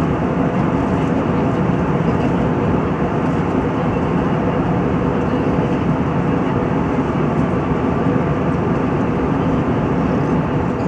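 Steady cabin noise of a jet airliner in flight, heard from a window seat beside the engine: engine and rushing air, with a faint steady hum.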